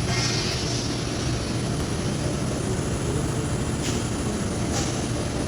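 MIG welder laying a bead, a steady crackling buzz.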